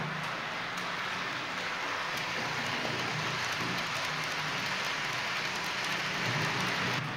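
H0-scale model freight train, a Vectron electric locomotive hauling tank wagons, rolling past on the layout's track: a steady hiss of metal wheels on the rails with a low hum underneath, a little louder near the end as the wagons pass close.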